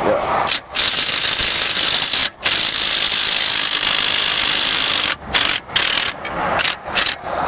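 A power tool working the lug nuts on a car wheel to break them loose. It runs loudly for about four seconds with one brief stop, then in several short bursts as the trigger is pulled and released.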